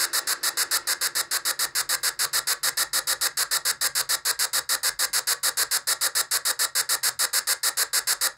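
Ghost-hunting spirit-box sweep: a steady, rapid chopping of static hiss, about eight bursts a second.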